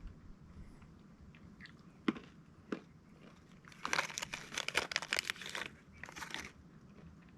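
Dry crinkling and crackling in two bursts, the first lasting about two seconds, preceded by a couple of sharp clicks.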